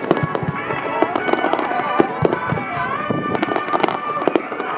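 Dense fireworks finale: rapid, irregular bursts and crackling shells going off one after another, with music played over loudspeakers alongside the display.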